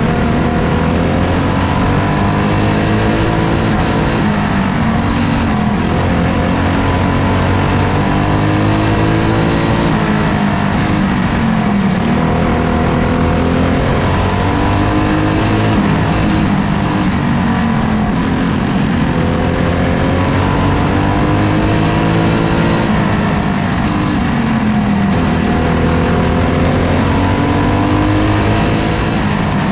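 On-board sound of a racing kart's engine at full race pace: the pitch climbs steadily along each straight, then drops sharply when the driver lifts for the corners, about every six seconds.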